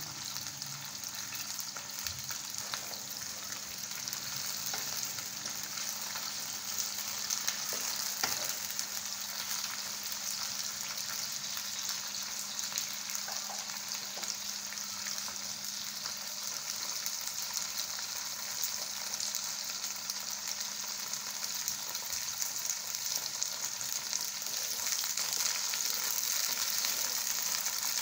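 Chopped okra frying in hot oil in a kadai: a steady, dense sizzle and crackle that grows a little louder over the last few seconds.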